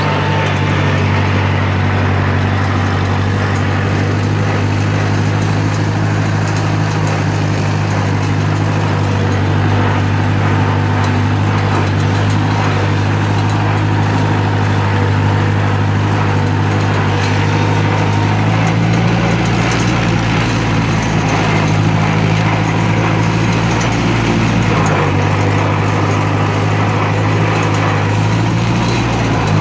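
1958 Cockshutt 540's four-cylinder flathead engine running steadily as the tractor drives across the field, heard from the driver's seat. The engine note shifts up and down a little about two-thirds of the way through.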